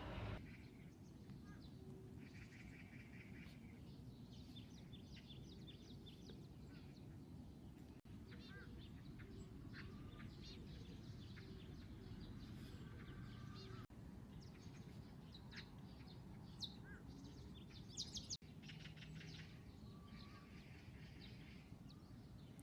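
Faint outdoor birdsong: small birds chirping and trilling on and off, with a brighter burst of chirps near the end, over a steady low background rumble.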